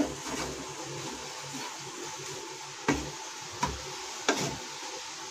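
A metal spoon stirring and scraping a thick potato, pea and paneer samosa filling in a pan, with a few sharp knocks of the spoon against the pan.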